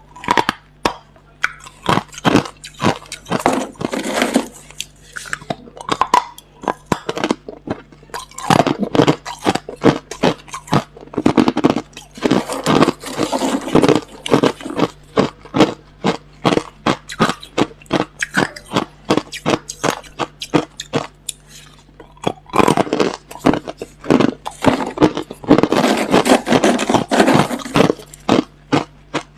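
Hard, clear crushed ice being bitten and chewed close to the microphone: a rapid, irregular run of crisp crunches and cracks, thickening into heavier stretches of grinding crunches several times. A faint steady low hum sits underneath.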